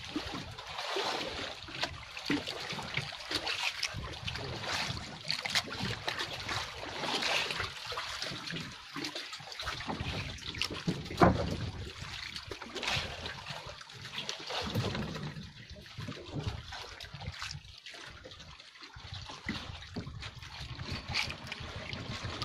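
Sea water lapping and splashing against the hull of a small outrigger boat, uneven and irregular, with one sharp knock a little past halfway.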